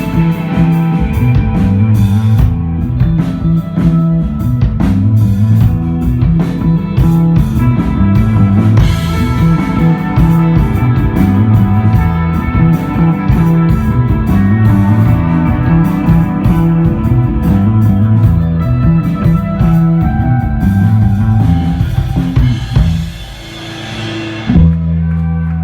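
Instrumental desert rock played live by a band on drum kit, electric guitar and bass guitar. Near the end the playing drops away, a final hit lands, and a low chord rings on as the song closes.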